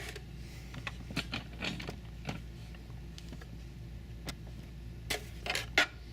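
Sewing machine handwheel being rolled by hand, its needle mechanism giving scattered light clicks and taps as the needle goes down to catch the bobbin thread and bring it up, with a few sharper clicks near the end.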